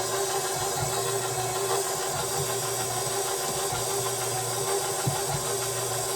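Electric stand mixer running steadily with its paddle beating cake batter, a constant motor hum.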